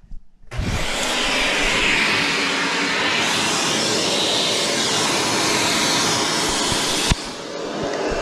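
An electric blower switched on about half a second in, running with a steady rush of air that drives a Lego DOHC engine model. A sharp click comes about seven seconds in, after which the blower runs a little quieter.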